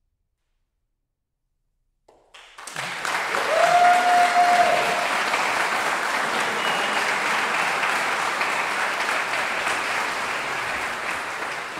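About two seconds of silence, then an audience breaks into steady applause. About three and a half seconds in, one listener holds a cheer above the clapping.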